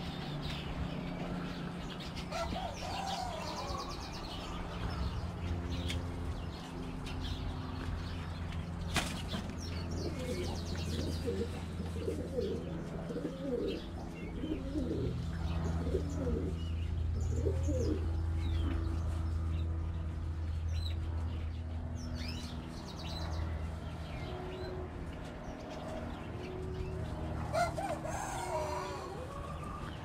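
Domestic pigeons cooing in their cages, with rolling coos clustered near the middle and a few wing flaps and short chirps. A steady low hum runs underneath.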